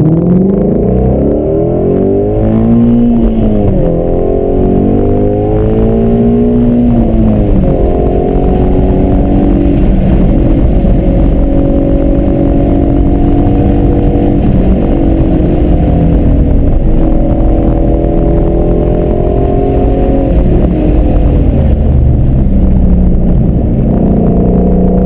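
Ford Shelby GT350's 5.2-litre flat-plane-crank V8 accelerating hard, heard from inside the cabin. Its pitch climbs and falls back with each upshift over the first several seconds, then holds high with a couple of dips.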